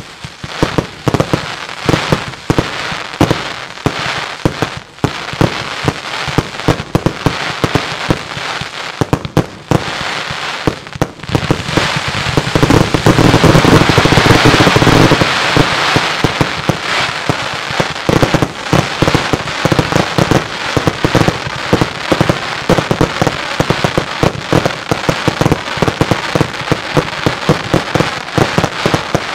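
Fireworks display: a rapid, unbroken run of bangs from shells and cakes going off. About halfway through it thickens into a dense, loudest volley, then goes back to quick bangs.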